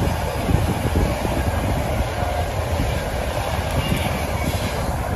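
Passenger train passing on the main line: wheels running on the rails as the train goes by.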